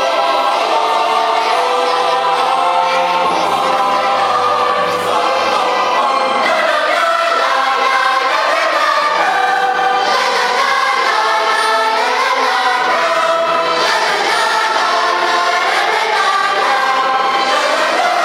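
A choir singing in harmony, many voices holding and moving between notes together.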